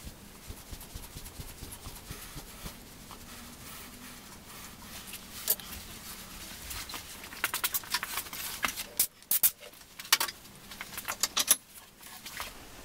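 Handling noises: quick clusters of sharp, light clicks and rattles with some rustling of wrapping, mostly in the second half.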